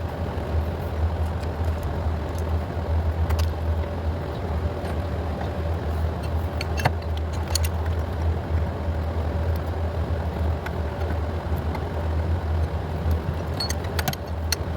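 Scattered light metallic clicks and clinks of hand tools and parts being worked on an engine's fuel rail and injectors, over a steady low rumble.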